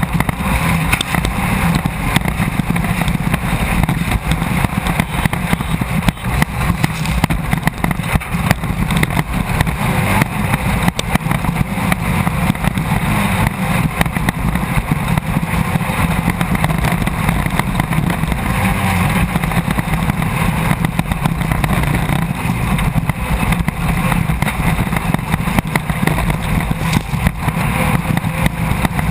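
Class 1600 desert race car's air-cooled 1600 cc VW engine running hard under load, heard from inside the car amid steady rattling and jolting.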